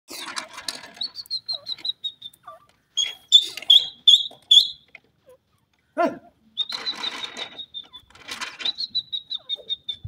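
Grey francolin (dakhni teetar) calling: several runs of quick, short, high piping notes, each run about a second long, with a sharper single call about six seconds in.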